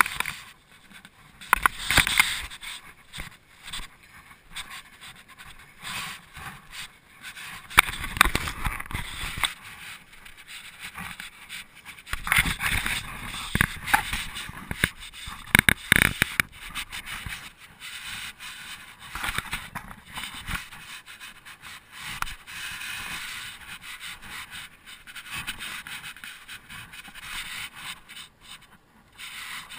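A hiker breathing hard, in irregular puffs, with scraping and scuffing on sandstone as the climb goes on.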